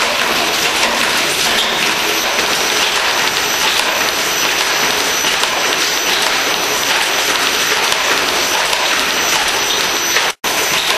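Wheelchair double-drum fatigue test machine running, its drums turning under the wheelchair's wheels: a loud, steady, dense clattering noise with a faint steady high whine. The sound cuts out for an instant near the end.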